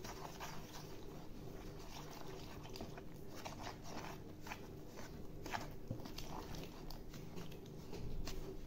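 Plastic spatula stirring flour and yeast water together in a plastic mixing bowl: faint, irregular scrapes and soft clicks as a no-knead bread dough is being mixed.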